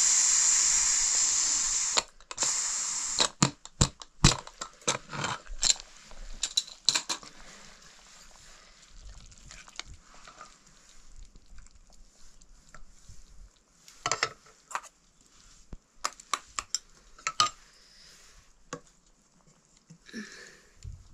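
Aluminium pressure cooker venting steam with a loud hiss as its weight valve is held up, cutting off suddenly about two seconds in. Then metal clatter and clinks as the lid is worked off and a steel ladle knocks against the pots, with a few scattered clinks later on.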